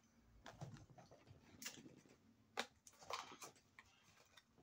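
Faint scattered clicks and soft rustles of a small cardboard toy box being handled.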